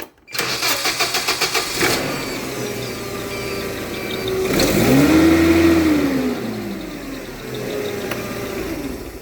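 Hyundai 25L LPG forklift engine cranking for about a second and a half, then catching and starting promptly, as it does when the key is turned straight to start without pausing at key-on. It idles, revs up briefly in the middle and settles back to idle, then drops away near the end.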